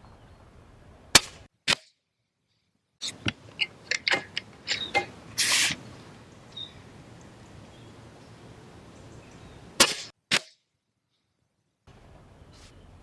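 Precharged pneumatic .177 air rifle firing twice: each time a sharp crack, then a second, shorter crack about half a second later, the two shots some nine seconds apart. Between them come a run of quick metallic clicks and a short rasp from the side lever being worked to cock and load the next pellet from the 15-shot magazine.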